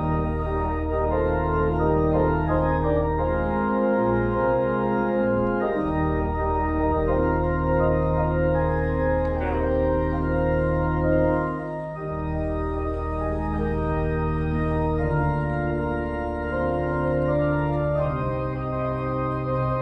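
Church organ playing slow, held chords over a deep sustained bass line, changing chords every few seconds: instrumental music after the service's dismissal.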